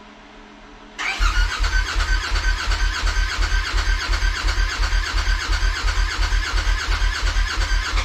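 Polaris RZR Turbo S's 925 cc turbo twin being cranked over on the starter without firing, fuel pump unplugged, to prime oil into the newly installed turbo. A rapid, even chugging of compression strokes with a whine above it, starting about a second in and cutting off suddenly at the end.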